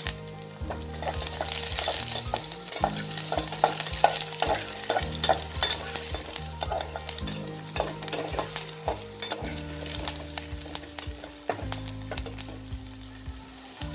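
Crushed garlic, sliced onion, green chilli and curry leaves sizzling in hot oil with mustard seeds in an aluminium pot, with a spatula stirring and scraping through them in many quick clicks.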